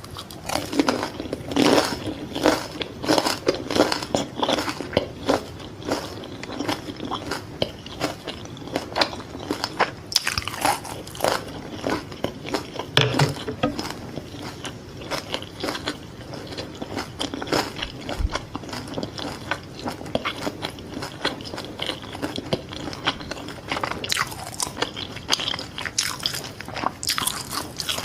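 Close-miked biting and chewing of Vietnamese fried fish balls (cá viên chiên), a steady run of crunchy bites and wet chewing, busiest in the first few seconds, about halfway through and near the end.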